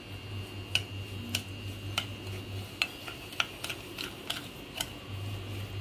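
Metal spoon stirring semolina and curd in a glass mixing bowl, clinking against the glass again and again at an uneven pace, over a faint low hum.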